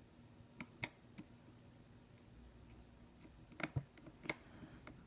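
Light, sharp clicks and taps of a small screwdriver and a tiny screw against the iPhone 6s's internal parts as the last screw is fitted. A few clicks come in the first second and a half, and a closer cluster follows near the end.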